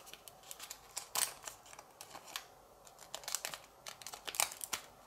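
Origami paper being handled and folded by hand: faint, irregular crisp crinkles and ticks as a flap is wrapped over an edge and creased.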